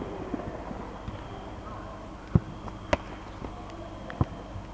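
Football being kicked and struck during play on artificial turf: three sharp thuds, the loudest about two and a half seconds in, with the others just after and near the end.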